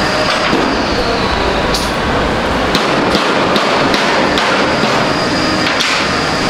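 Loud, steady running noise of a vehicle, with scattered clicks and a faint high whine.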